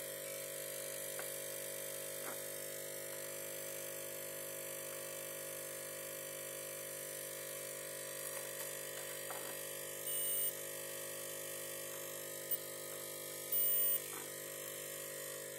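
Digital multimeter in continuity mode beeping twice, each beep about half a second long, over a steady low electrical hum. The beeps signal continuity between the terminals of a VRM MOSFET, which the technician takes as a shorted MOSFET on the motherboard.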